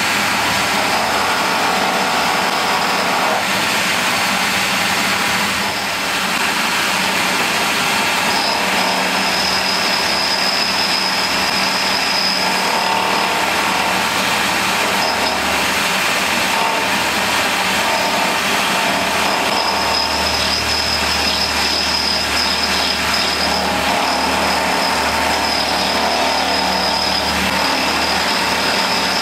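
Milling machine running with an end mill cutting into a brass block: a steady motor and cutting noise, with a high whine that comes and goes as the cut proceeds.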